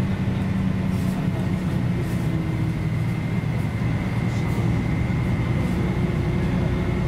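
The six-cylinder diesel engine of a 1994 Mercedes-Benz O 405 G articulated bus running steadily, a constant drone with a thin high whine above it and a few faint rattles.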